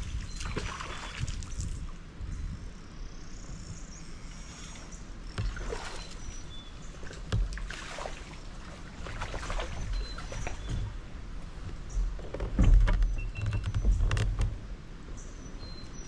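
Water swishing and splashing around a fishing kayak several times, loudest near the end, over low rumbles. Short high bird chirps come in between.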